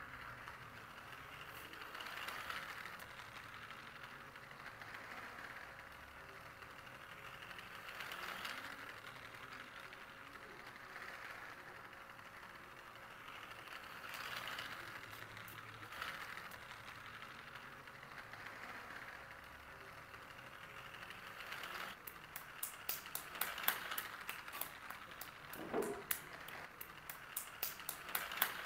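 Small battery-powered toy train motor running steadily as the train circles a plastic track, its sound swelling about every six seconds as it passes close by. In the last several seconds, a child's hands clap rapidly.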